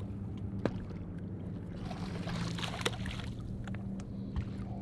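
A bass boat's motor humming steadily, with light water splashing and a couple of sharp clicks.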